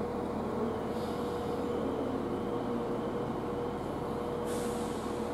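Steady railway station background hum with a continuous low drone.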